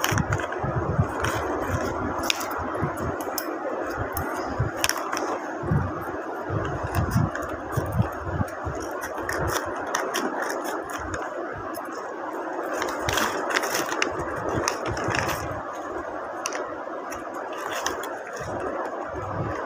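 Paper and sticky tape crinkling and rustling as a homemade taped paper blind bag is handled, snipped open with scissors and its smaller paper packets pulled out, with many short sharp crackles over a steady background noise.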